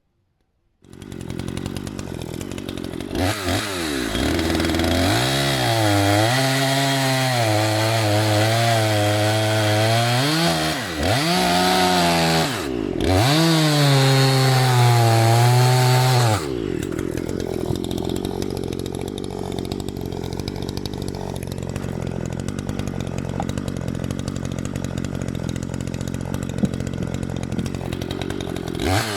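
Maruyama MCV5100S two-stroke chainsaw starting up about a second in, then revving hard under load, its pitch sagging and recovering as it cuts wood. Twice the engine speed briefly drops and comes back up. After about sixteen seconds it falls back to a low, steady idle.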